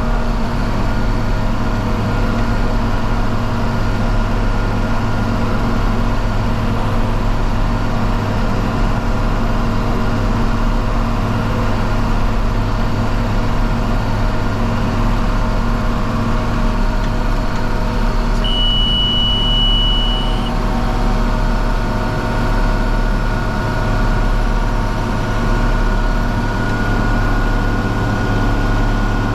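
John Deere 4230's six-cylinder diesel engine running steadily under load while pulling a round baler. About two-thirds of the way through, the bale monitor gives one steady high beep lasting about two seconds.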